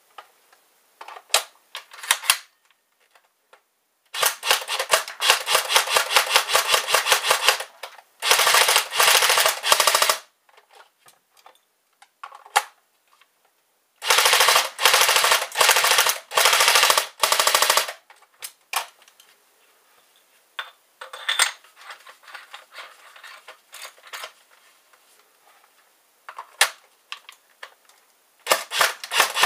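VFC SCAR-H airsoft electric gun (AEG) on a 7.4 V LiPo battery firing. A few single shots, then long full-auto bursts of rapid, evenly spaced shots, then scattered single shots, and another full-auto burst near the end.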